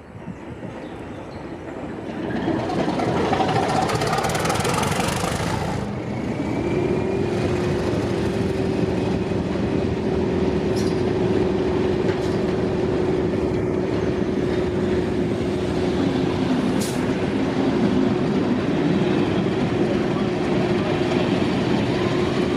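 Diesel train at a station platform: a loud rush of engine and rail noise builds over the first few seconds, then gives way to a steady diesel engine hum as the coaches roll slowly past, with a few sharp clicks.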